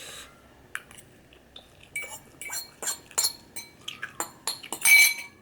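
An eating utensil clinking and scraping against a bowl of ramen: a string of sharp, irregular clinks, some with a brief ring, the loudest about five seconds in.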